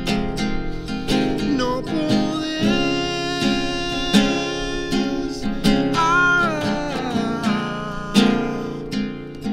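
Acoustic guitar strummed in a steady rhythm, about two strums a second, with a man's voice singing a sustained melody over it from about a second and a half in until near the end.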